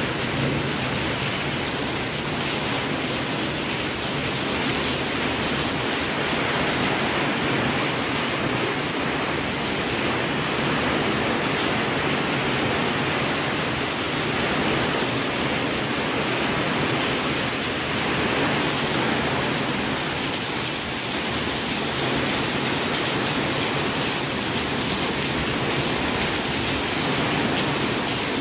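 Steady rain, an even hiss that holds without a break.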